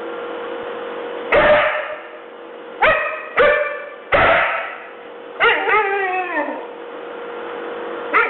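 Young husky barking and yipping in sharp, pitched calls, about five of them. The later calls are drawn out and wavering, in the husky's howl-like 'talking' manner, with some echo.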